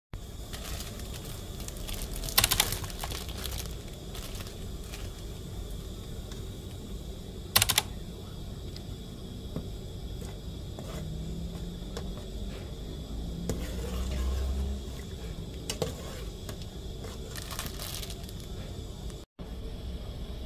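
Cooking at the stove: a metal ladle stirs and scrapes in an aluminium pot of hot water as curry paste is dissolved. There are two sharp clinks, about two and a half and seven and a half seconds in, over a steady low background noise, and a brief dropout near the end.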